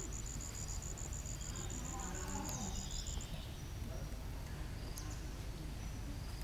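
Forest ambience: an insect trilling high up in rapid, evenly spaced pulses, which stops about three seconds in, over a steady low rumble.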